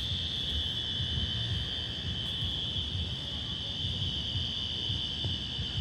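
Building fire alarm sounding a steady, high-pitched tone, with a low rumble beneath it.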